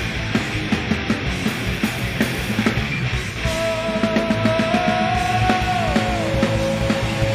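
Hardcore punk band playing live at full volume: distorted electric guitars, bass and driving drums. From about halfway a long high note is held over the band, stepping down once and bending up near the end.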